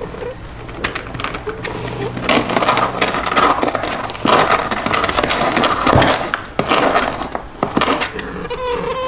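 Cats scrabbling over a cardboard box and a plastic pet carrier: a dense run of paw scratches, rustles and light knocks. A cat starts a wavering meow near the end.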